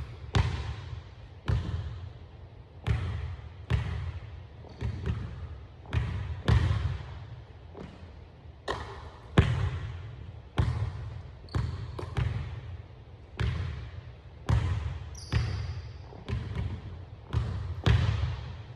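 Basketball bouncing on a hardwood gym floor, sharp irregular thuds about a second apart that ring out in the hall. A few brief high sneaker squeaks are heard between bounces.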